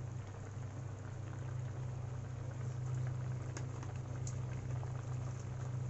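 Egg curry gravy simmering in a metal wok, bubbling steadily around whole eggs poaching in it, over a constant low hum.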